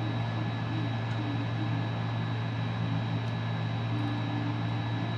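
Steady low electrical hum with an even fan-like whir and a faint thin high whine, unchanging throughout.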